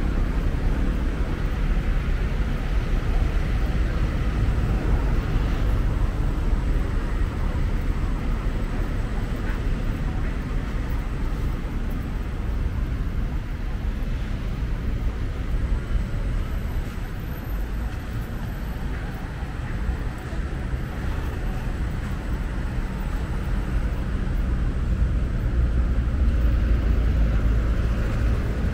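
Steady outdoor city ambience dominated by a low rumble of road traffic.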